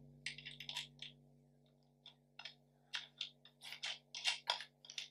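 Faint, irregular metal clicks and taps as a fixing bolt is worked through a strap eyelet into a metal dive backplate, a cluster in the first second and more through the second half, over a faint steady low hum.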